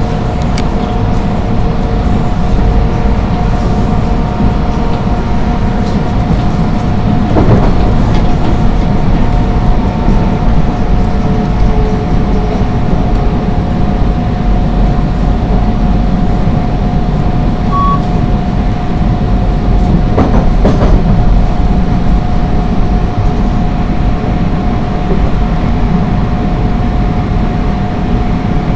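Subway train running along surface track, heard from inside the leading car: a steady low rumble of wheels on rail with a constant high whine. Two brief clacks come about a quarter of the way in and again about two-thirds through.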